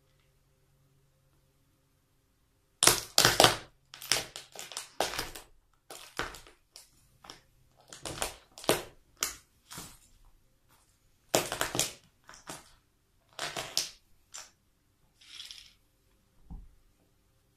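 Toy cars crunching and cracking under a high-heeled shoe, in a string of loud crunches that begins about three seconds in. Near the end come a softer crackle and a short low thud.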